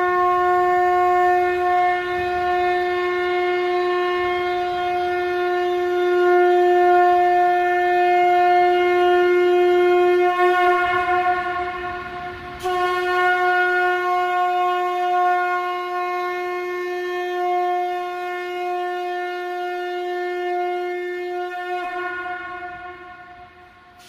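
Conch shell (shankh) blown in long, steady single-pitched blasts. The tone wavers and dips about ten seconds in, starts again sharply and holds, then fades out near the end.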